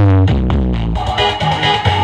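Electronic dance music played loud through a large stacked-speaker sound system with 18-inch subwoofers, heavy in the bass. A falling pitch sweep opens it, and from about halfway the music turns denser and busier.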